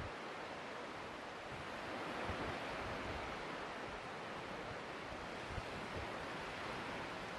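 Sea surf washing onto a sandy beach, a steady hiss, with gusts of wind rumbling on the microphone.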